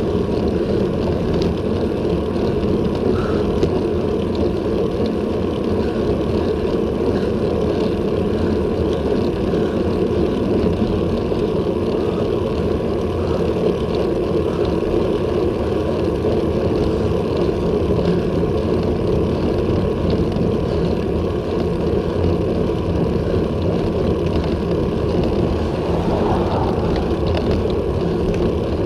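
Steady wind rush on an action camera's microphone mounted on a moving road bike, with low road rumble, while riding uphill at about 20 km/h.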